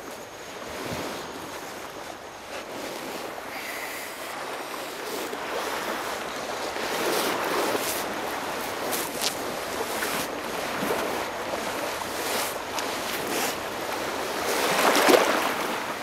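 Surf washing onto a sandy beach, swelling and ebbing, loudest near the end.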